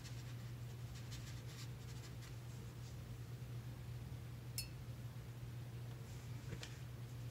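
Faint scratchy strokes of a watercolour brush dabbing and dragging paint across paper, with one light clink a little past halfway, over a low steady hum.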